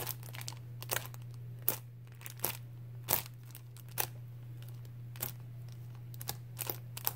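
Fingers poking and squeezing a soft, white homemade slime on a plastic sheet: scattered sharp clicks and pops, with the plastic crinkling underneath.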